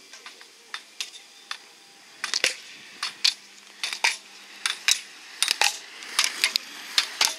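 Sharp, irregular clicks and clacks from an inline slalom skater working through the gates with ski poles on asphalt. They are sparse at first and come faster and louder from about two seconds in.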